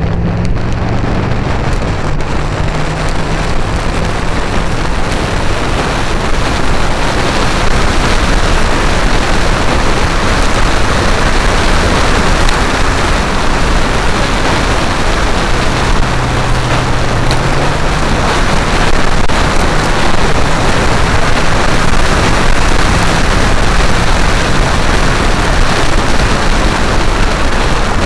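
Heavy wind noise rushing over the microphone of a moving Vespa GTS scooter, with its single-cylinder engine running low underneath. The engine note steps up about halfway through and holds there.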